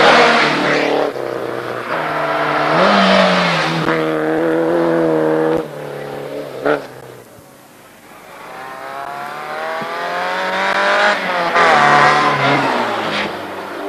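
Rally car engines at full throttle, several cars one after another: the engine note climbs and falls through gear changes as each car approaches and passes, including a Renault 5 and an Opel Kadett GSi. A brief sharp pop comes about seven seconds in.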